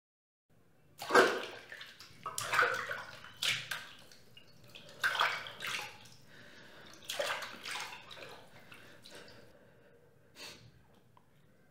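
Water splashing and sloshing in a bathtub as a person moves an arm through it: about five separate splashes roughly a second apart, weaker toward the end, with one small splash near the end.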